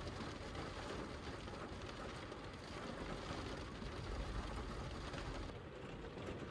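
Heavy rain drumming steadily on the roof of a Toyota 4Runner, heard from inside the cabin, with a brief low rumble about four seconds in.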